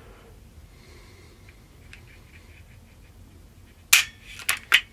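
Beretta 81BB pistol's hammer snapping down as a spring trigger-pull gauge breaks the single-action trigger: one sharp metallic click about four seconds in, followed by two lighter clicks, after a few seconds of faint handling ticks.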